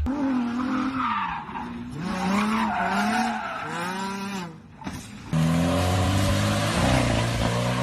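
A car engine revving up and down repeatedly with tyre squeal, then settling into a louder, steadier drone a little past halfway.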